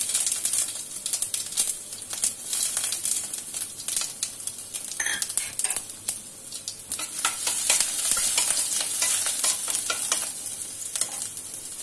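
Mustard seeds and chopped ginger sizzling in hot ghee and oil in a stainless steel kadai, the hiss dotted with sharp crackles and pops from the seeds. A spoon stirs the tempering against the steel pan near the end.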